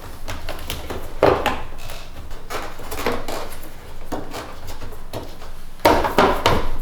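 Hard plastic engine-bay cover pieces being handled and pushed into place: a string of clicks, knocks and scraping, with a few sharper knocks near the end.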